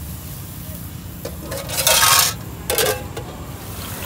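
Metal spatula scraping and clanking against a steel wok while stir-frying noodles and greens: a light click a little over a second in, a loud scrape about two seconds in, and a shorter one just before three seconds, over a steady low rumble.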